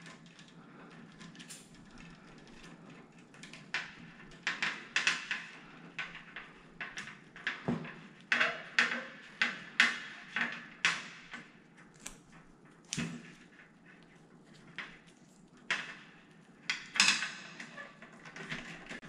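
Electrical tape being unrolled and wrapped around spliced wires: irregular crackling and rustling from about four seconds in, with two light knocks.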